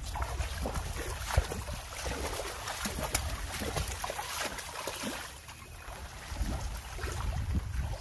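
Water splashing and trickling in many quick little splashes, with wind rumbling on the microphone.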